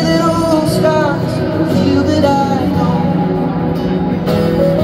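Live acoustic song amplified through a stadium sound system: a voice singing a slow melody over guitar and piano.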